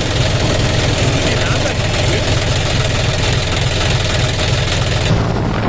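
John Deere 5045D tractor's three-cylinder diesel engine running at road speed, under a loud, even hiss of the rear tyre on wet asphalt. About five seconds in the hiss falls away, leaving mainly the engine hum.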